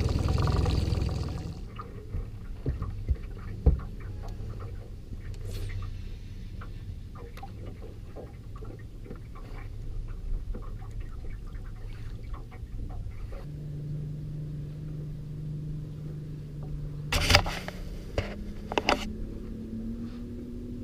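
Loud rushing noise for about the first second, then water and scattered clicks and knocks of fishing gear being handled in a boat. About two-thirds of the way in, a steady low boat-motor hum starts and steps up in pitch near the end, with a burst of sharp knocks just before it rises.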